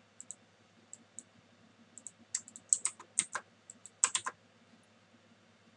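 Loud computer keyboard keys clicking: a few scattered taps, then short clusters of keystrokes, the loudest around three and four seconds in.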